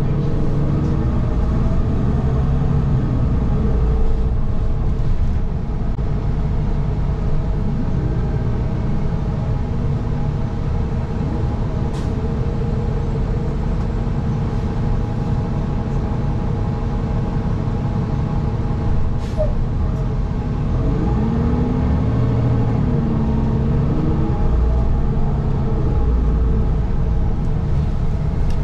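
City transit bus in motion, heard from inside: a steady low engine and road rumble, with a drivetrain whine that rises and falls in pitch as the bus speeds up and slows down. Two sharp clicks, about twelve and nineteen seconds in.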